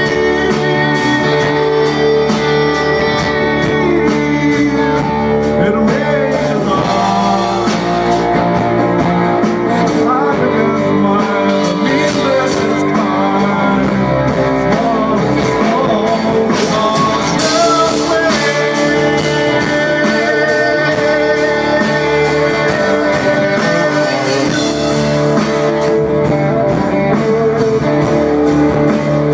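Live folk-rock band playing: strummed acoustic guitar and electric guitar over a drum kit, with a fiddle bowing a melody over the top.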